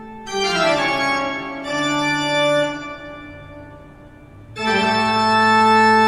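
Organ-like keyboard music in long held chords. Just after the start the chord slides down in pitch and is held, then fades, and a loud new chord comes in about two-thirds of the way through.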